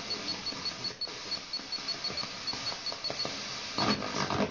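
Sanyo FXR-22LP car radio on FM with a weak, fading long-distance station: steady static hiss with the broadcast nearly lost, and a faint high ticking about five times a second. The signal swells briefly near the end.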